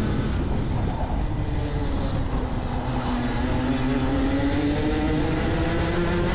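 Rotax Max 125cc two-stroke kart engine heard onboard at race pace. Its revs drop as the kart slows for a corner, then climb steadily again on the exit.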